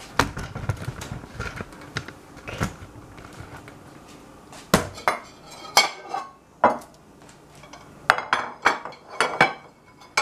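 Dishes and utensils clattering on a tiled kitchen counter: a series of sharp knocks and clinks, more frequent in the second half. This includes a glass baking dish being set down on the tile.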